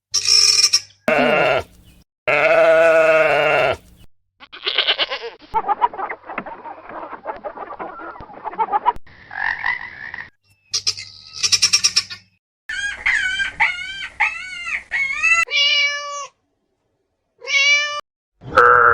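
A run of short farm animal calls, cut one after another with brief silent gaps between them. Through the middle comes a quick series of repeated rising-and-falling calls.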